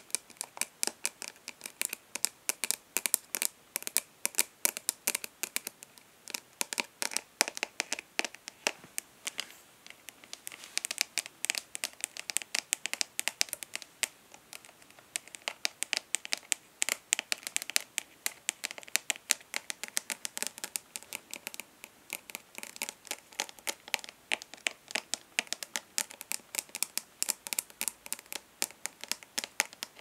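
Long natural fingernails tapping fast and lightly on the plastic lid of an eyeshadow palette: a rapid, irregular run of sharp clicks with short light scratches mixed in.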